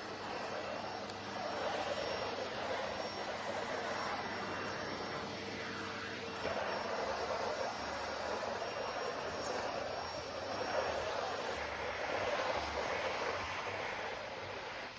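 Vacuum cleaner running, with a steady high motor whine over a rush of air that swells and fades.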